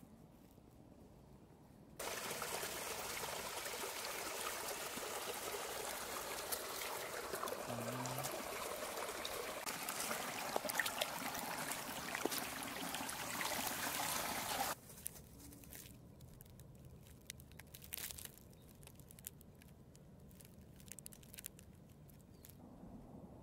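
Running water trickling, a steady hiss that starts suddenly about two seconds in and cuts off just as suddenly about two-thirds of the way through, with small crackles of leaves over it. Before and after it, faint outdoor quiet with scattered light crackles and ticks.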